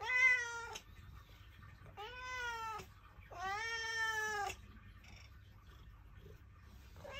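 Ginger tabby cat meowing three times, about a second apart, the third call the longest; a fourth meow begins right at the end.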